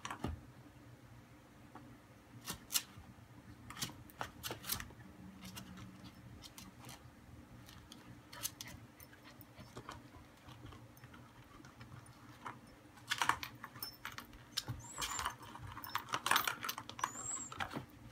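German Shepherd puppy mouthing and pawing a plastic cat track-ball toy: irregular clicks and rattles of hard plastic, busier in the last few seconds.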